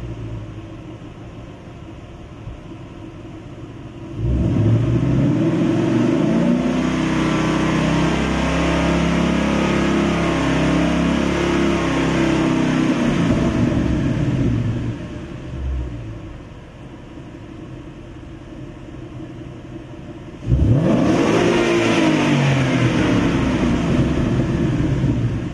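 2013 Ford Mustang GT's 5.0 L V8 through its stock exhaust. It idles, is revved up sharply about four seconds in and held high for about ten seconds, then drops back to idle with one short blip. Near the end it is revved sharply again toward full rpm.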